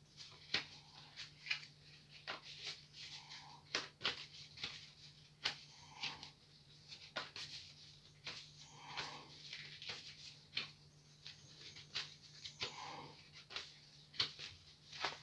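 Tarot cards being shuffled by hand: faint, irregular soft clicks of the cards slipping against each other, about two a second.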